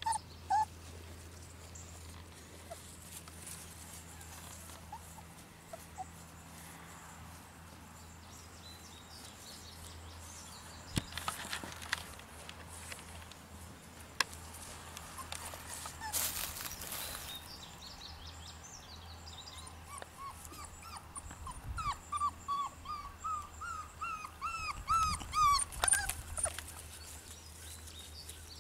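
English Shepherd puppy whimpering: a couple of short whines at the start, then near the end a quick run of short rising yelps, two or three a second, that grow louder. A few sharp rustles come in between.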